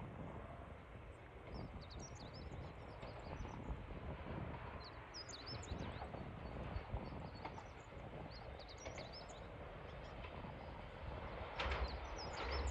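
Small birds chirping over a steady low outdoor rumble. About a second before the end, the noise of an approaching Sangi Railway 801 series electric train starts to rise.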